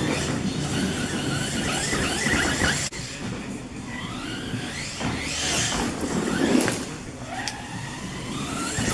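Arrma Talion EXB RC truck's brushless electric motor and drivetrain whining, rising and falling in pitch several times as the throttle is worked.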